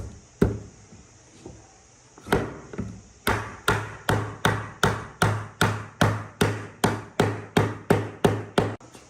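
Hammer blows in a woodworking job: a few separate strikes, then a steady run of about fifteen blows, two or three a second, that stops near the end.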